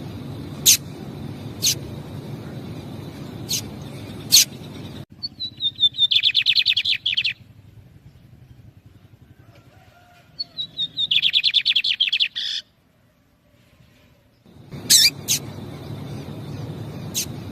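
Lined seedeaters: sharp single call notes, a few seconds apart, at the start and again near the end, with two fast trilled song phrases in between, each starting high and falling, about five and ten seconds in. These are the female calling and the male answering in song.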